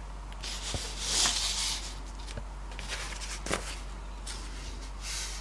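Handling noise as a camera on a tripod is unlocked and repositioned: soft rubbing and rustling with a few scattered clicks, over a steady low hum.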